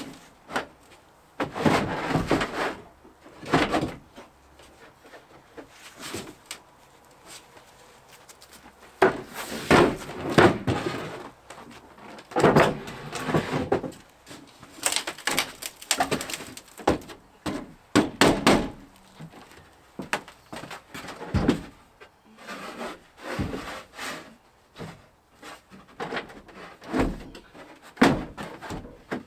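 Irregular knocks, bumps and scraping of hands-on work fitting parts to a truck camper, with door-like slams among them.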